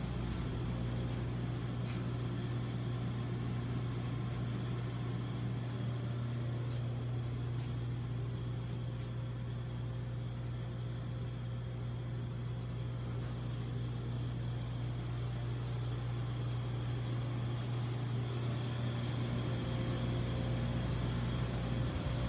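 A steady low mechanical hum with a faint high whine that does not change.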